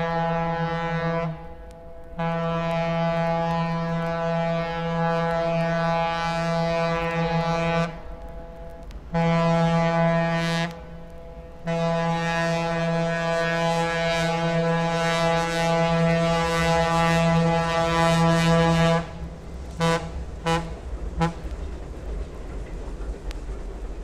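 Steam locomotive whistle sounding a deep, steady chord in the long–long–short–long pattern of a grade-crossing signal, then a few quick short toots near the end, over the low rumble of the moving train.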